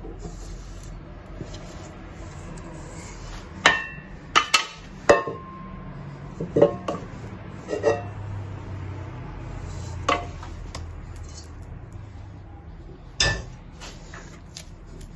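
A series of sharp knocks and clinks, several with a brief ring, from a metal mixing bowl and a silicone spatula as soft bread dough is scraped out of the bowl into a plastic one.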